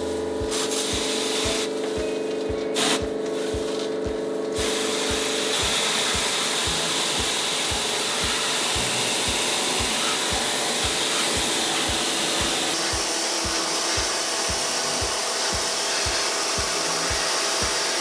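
Water spraying from a hand-held spray wand onto an air conditioner's outlet louvers during cleaning. There are a few short sprays at first, then a steady hiss of spray from about four and a half seconds in.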